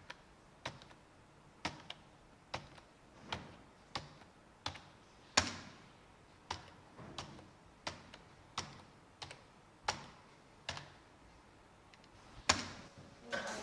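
Computer keyboard keys pressed one at a time, slow separate clicks a little more than one a second, with a couple of harder strikes about five seconds in and near the end.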